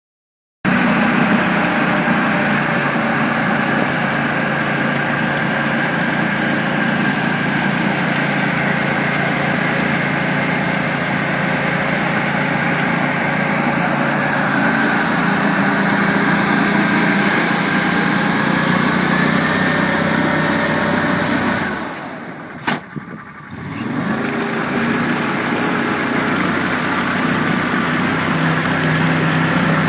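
Argo 8x8 amphibious ATV engine running steadily. Its sound drops away sharply for a second or so, with a single click, about two thirds of the way through, then comes back and grows louder near the end.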